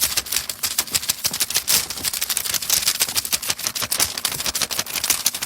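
Rapid, irregular clicking and rattling, many small clicks a second without letting up.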